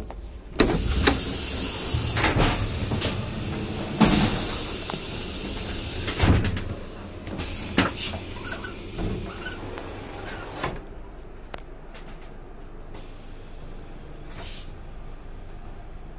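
Knocks and clunks of a passenger train carriage's vestibule doors and gangway fittings as someone passes through between carriages, the loudest about 1, 4 and 6 seconds in. After about ten seconds they stop, leaving the quieter steady noise of the carriage interior.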